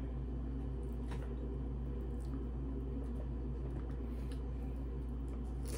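Steady low hum of room noise, with a few faint light clicks as cucumber slices are handled on a plate.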